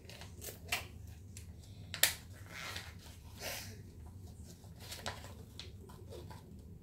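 Paper crinkling and rustling in scattered short crackles as a folded paper sheet from a toy package is handled and unfolded by hand, with one sharper snap of paper about two seconds in, over a faint low hum.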